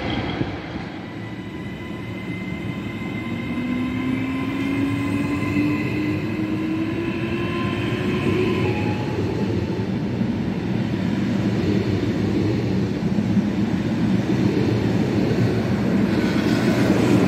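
Trenitalia Hitachi Rock (ETR 521) double-deck electric train pulling along the platform. Its traction motors whine, rising steadily in pitch as it gathers speed over several seconds, and the rumble of its wheels on the rails grows louder as the carriages run close by.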